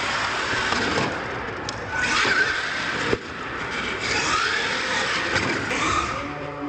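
Electric motors of an R/C monster truck whining up and down in pitch as the throttle is worked during freestyle stunts, with a sharp knock about three seconds in as the truck hits the floor.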